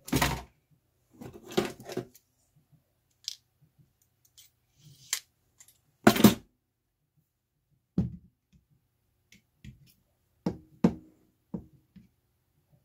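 Scattered short clicks and knocks of tools and a plastic cordless drill being handled on a tabletop, as work on opening the drill's housing begins. The loudest knocks come at the start and about six seconds in.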